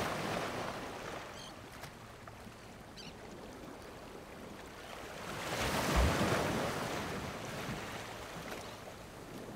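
Waves washing in: a rushing of water that swells to its loudest about six seconds in, then fades.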